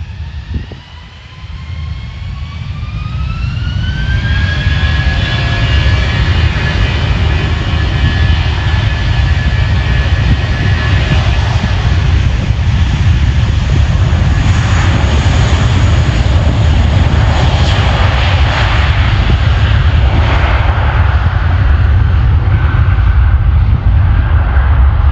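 Airbus A320 jet engines spooling up for takeoff: a whine rising in pitch and a loud rumble that builds over the first four seconds, then a steady loud rumble with a high whine at takeoff thrust.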